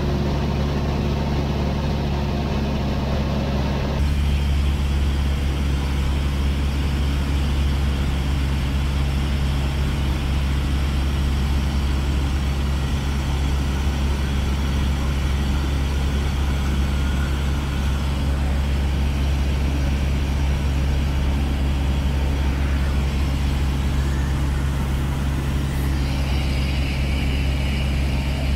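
Cessna 152's four-cylinder Lycoming engine and propeller droning steadily in flight, heard inside the cabin.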